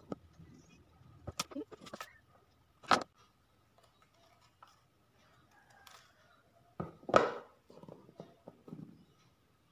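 Sheets of thin folding paper rustling and crinkling as they are handled and torn into small pieces, with a few short sharp clicks; the loudest rustle comes about seven seconds in.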